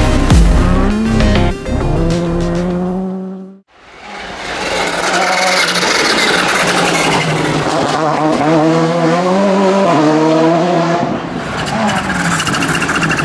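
VW Polo GTI R5 rally car's turbocharged four-cylinder engine revving hard on a stage, its pitch repeatedly climbing and dropping as the driver goes through gears and on and off the throttle. It starts after an abrupt cut to silence about three and a half seconds in.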